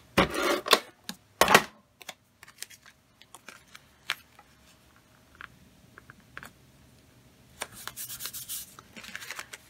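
A tape runner is pulled across cardstock in about three short scraping strokes, laying adhesive. Then come scattered small clicks of paper being handled, and near the end fingers rub the mat down onto the paper cover.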